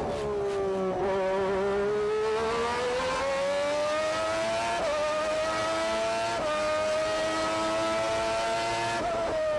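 Honda 3.5-litre V12 of a 1992 McLaren Formula One car, heard onboard at full throttle. Its high engine note dips at the start, then climbs long and steadily, broken by two quick gear changes, and falls again near the end as the revs drop.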